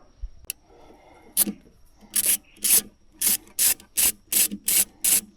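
Ratchet wrench with a Torx 30 bit being worked back and forth to undo a bolt on the fuel filter housing, each back-swing giving a short rasping ratchet stroke. After a single stroke, the strokes come steadily about twice a second from about two seconds in.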